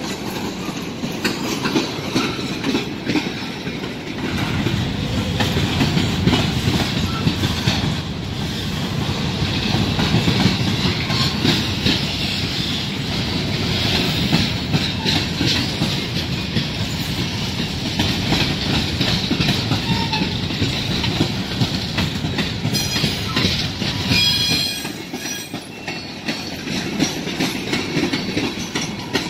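Freight train cars rolling past: covered hoppers, a boxcar and a tank car, with a steady rumble and rattle of steel wheels on rail and clicks as the wheels cross rail joints. A brief high wheel squeal comes about three-quarters of the way through, and the low rumble eases just after it.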